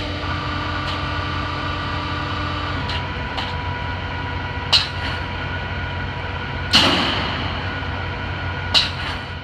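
Filter press machinery running with a steady hum and held tones. Three sharp clanks come about two seconds apart in the second half, the middle one loudest with a short hiss after it.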